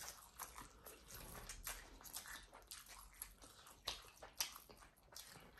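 Close-up eating sounds of spicy instant noodles: slurping and chewing with many short wet mouth clicks and smacks, and two sharper, louder clicks about four seconds in.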